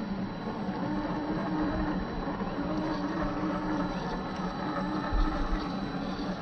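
A 1/10-scale RC crawler's electric motor and gear drivetrain running, a steady whine that wavers slightly in pitch, with a short low thump about five seconds in.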